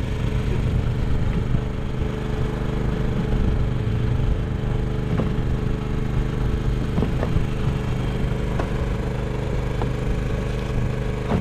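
An engine aboard a small fishing boat running steadily at an even pitch, with a few light knocks over it.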